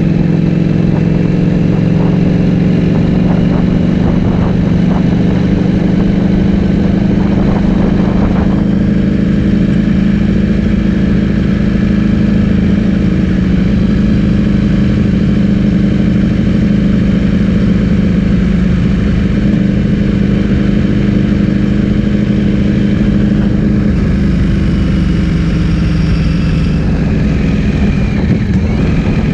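Ducati Streetfighter V4 S's V4 engine running through an Akrapovic full-system exhaust while riding, holding a loud, fairly steady engine note with little change in pitch and a shift in tone about eight seconds in.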